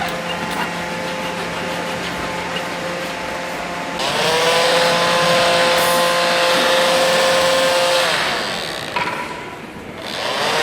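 Electric woodworking power tool: the motor spins up with a rising whine about four seconds in, runs steadily for about four seconds, then winds down. It spins up again just before the end.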